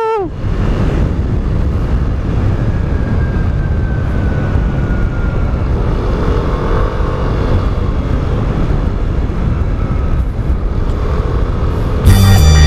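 Wind rushing over a helmet-mounted lavalier mic on a moving motorcycle, a steady low rumble with the bike's engine and road noise beneath it. Music comes in near the end.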